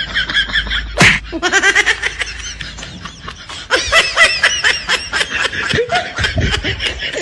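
A person laughing in a long run of short, quick giggles, fairly loud throughout.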